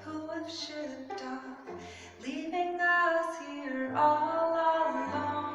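A woman singing a song with instrumental accompaniment, over low held bass notes that change about every second.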